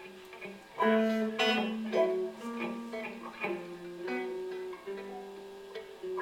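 Several electric guitars playing plucked notes that overlap and ring on as sustained tones, with the strongest attacks about one and two seconds in.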